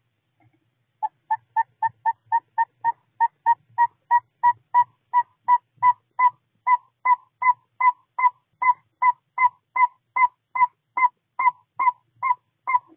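Northern saw-whet owl giving its tooting advertising call: a long, even series of short whistled toots, about three a second, starting about a second in.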